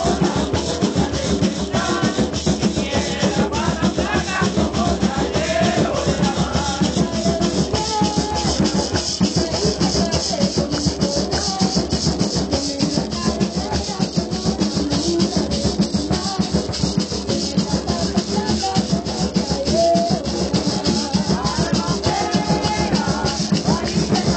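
Live Puerto Rican parranda music: maracas and drums keep a steady rhythm while voices sing along.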